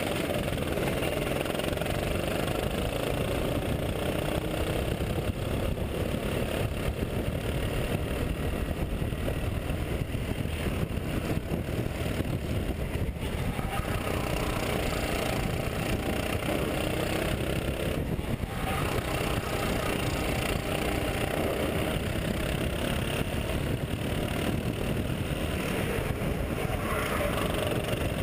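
Go-kart engine at racing speed, heard from onboard the kart. Its pitch rises and falls as the driver accelerates and lifts through the corners.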